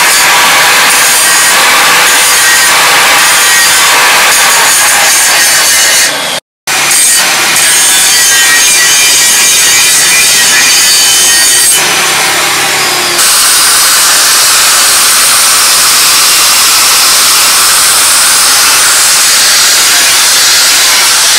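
Electric angle grinder's abrasive disc biting into rusty steel, a loud continuous grinding with a faint whine, throwing sparks. The sound cuts out for a moment about six seconds in, then carries on.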